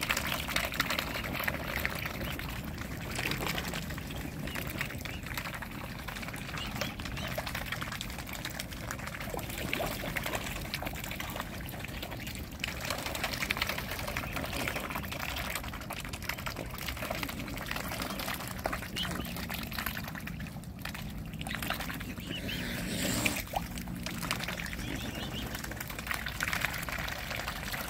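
Close water splashing and dribbling as mute swan cygnets dabble and feed with their bills at the surface, a busy run of small splashes and slurps.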